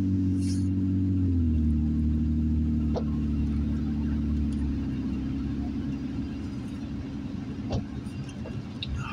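Car engine and tyre noise heard from inside the cabin while driving on a wet road. The engine note steps down in pitch about a second in, then runs steady, with a couple of faint ticks along the way.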